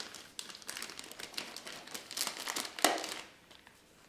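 Clear plastic film wrapping crinkling and rustling as it is pulled off by hand, in irregular bursts with a louder crackle just before three seconds in. It dies down near the end.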